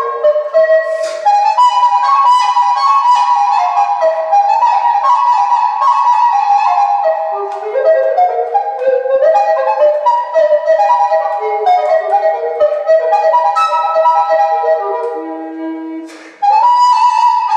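Recorder playing quick runs of notes in a classical style, one melody line at a time. A short break comes near the end, and then a new phrase starts on a held note.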